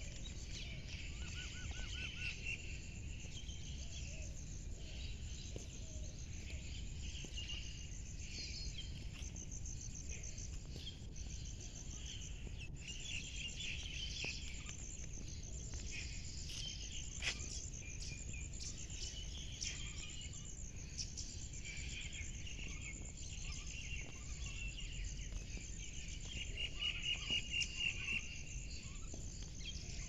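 Small birds chirping and twittering over a steady low background rumble, with a run of louder repeated chirps near the end.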